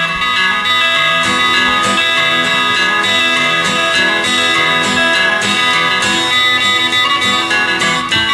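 Background music played on guitar, with picked notes and a steady rhythm.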